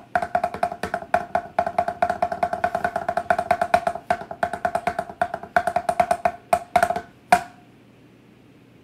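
Plastic light-up drumsticks drumming a fast, even roll of strikes, each hit with a short ringing tone. The roll stops about seven seconds in with one louder final hit.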